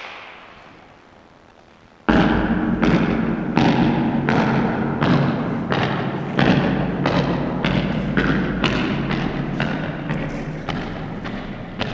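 A run of heavy thuds that starts suddenly about two seconds in, at about one to two a second and coming faster toward the end, each with a short ringing tail, over a steady low rumble.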